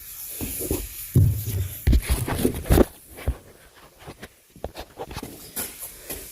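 Series of knocks and clicks from working a 1971 Chevy truck's door handle and latch parts by hand, with a cluster of heavier clunks about one to three seconds in and lighter clicks after.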